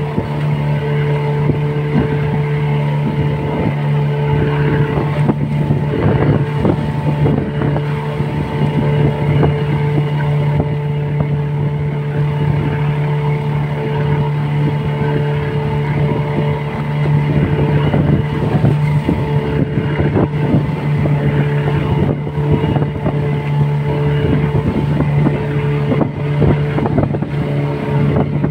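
Motorboat engine running at a steady, unchanging pitch, with water rushing past the hull and wind on the microphone.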